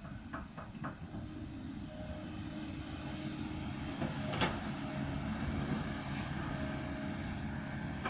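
Kobelco 220 hydraulic excavator's diesel engine running under load as it digs into a hillside, growing louder from about two seconds in as the arm works. A sharp knock about four and a half seconds in.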